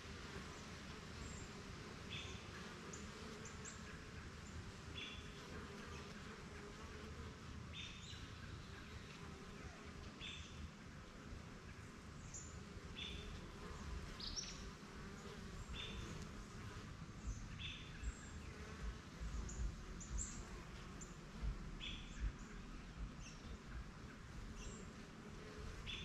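Honeybees buzzing as they fly around their hive, a faint steady hum. Over it a bird repeats a short high call every two to three seconds, with occasional thin higher chirps.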